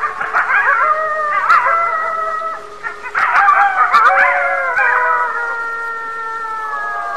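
A pack of wild canids howling in chorus: several long howls at different pitches, held and slowly falling, overlapping one another, broken at the start and again about three seconds in by bursts of quick warbling yips.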